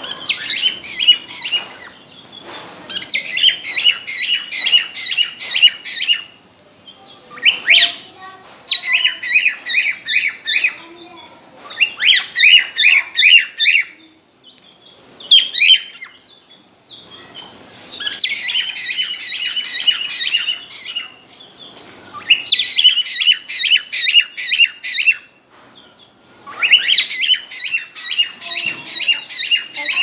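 Cockatiels calling in repeated bursts of rapid, high chirping notes. Each burst lasts a couple of seconds, with short pauses between. This is courtship whistling from birds in breeding condition.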